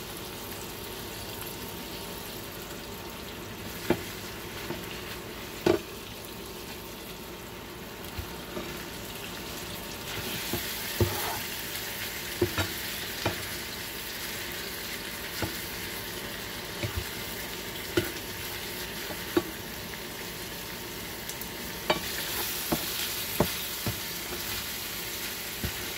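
Cubes of sous-vide-cooked ground beef sizzling and frying in a nonstick skillet on high heat. The sizzle grows louder about ten seconds in and again near the end. Spatula clicks and knocks against the pan come every second or two as the pieces are turned.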